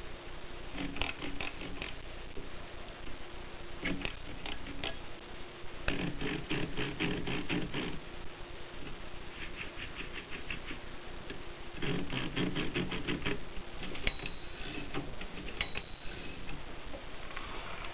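Typing on a Groma typewriter: quick runs of key strikes in several bursts, with short pauses between them.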